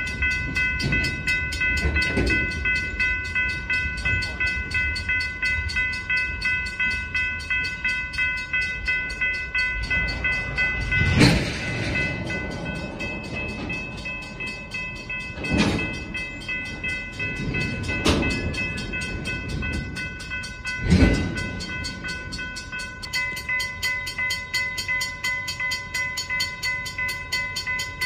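Freight train tank cars rolling slowly past with a low rumble and four loud clanks from wheels and couplers. A grade-crossing bell rings over it in a steady, even rhythm.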